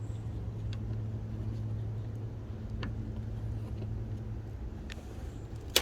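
Small clicks of metal hood-latch parts being handled and adjusted, with a sharper knock near the end, over a steady low hum.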